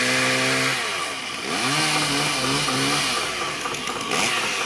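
A small engine held at a steady speed, then dropping back and revving up again briefly with a wavering pitch.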